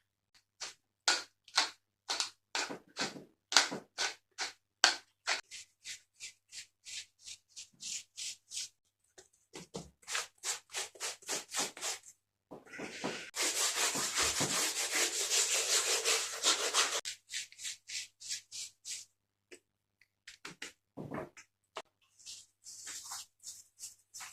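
Quick repeated scraping strokes, about two to three a second, then a steady rushing hiss for about four seconds, then a few scattered strokes.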